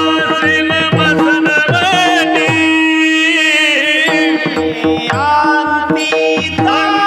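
Male voice singing a devotional kirtan melody (chal) with gliding, ornamented phrases, over a steady held drone note and regular hand-drum strokes.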